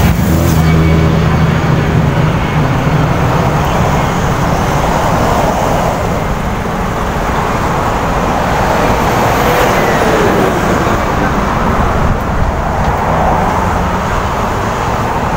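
Road traffic on a multi-lane road: cars and vans passing in a steady wash of tyre and engine noise, rising and falling as each goes by. A vehicle engine's low, steady hum shows for the first few seconds.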